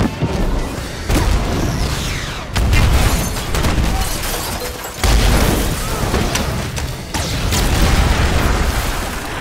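Cars set off by a remote detonator exploding one after another in a film soundtrack: four heavy, sudden blasts a couple of seconds apart, each trailing off into a rumble.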